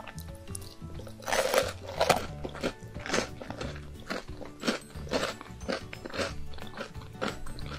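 Close-miked crunching as a hazelnut wafer chocolate ball is bitten and chewed: two loud crisp crunches about one and a half and two seconds in, then a run of smaller chewing crunches. Background music plays underneath.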